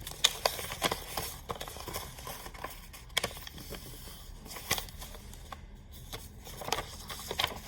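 A sheet of paper being handled, rustling and crinkling, with scattered crisp taps and clicks.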